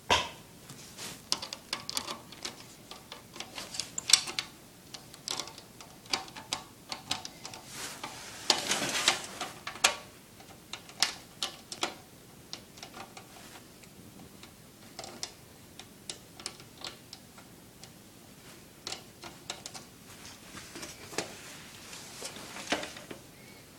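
A thick screw being forced by hand through a fan's mounting hole into a computer case: irregular clicks and scrapes of metal and plastic, with a longer grinding scrape about nine seconds in.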